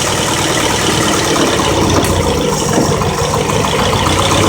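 1991 Honda Prelude's four-cylinder engine idling steadily, recovering after carb cleaner sprayed at a leaking vacuum hose nearly stalled it: a sign of a vacuum leak at that hose.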